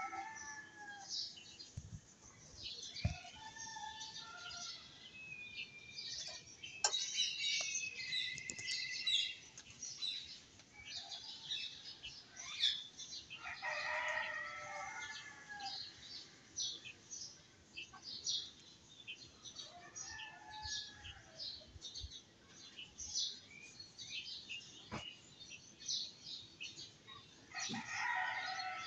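Birds calling and chirping throughout, with a longer crowing call about halfway through and another near the end. A few light knocks.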